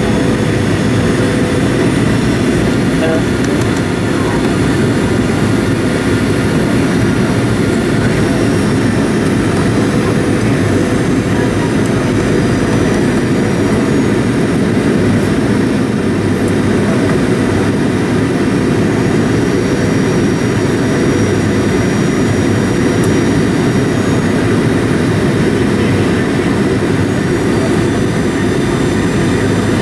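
Inside the cabin of a Boeing 737-800 on approach: the steady roar of its CFM56-7B jet engines and the airflow, with faint steady whines above it.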